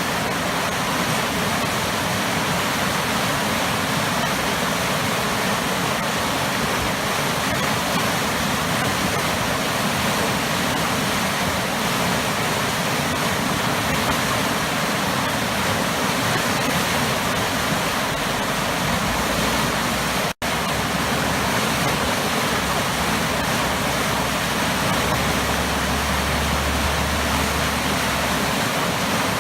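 Waterfall pouring into heavily churning water: a steady, dense rushing roar. It cuts out for a split second about two-thirds of the way through.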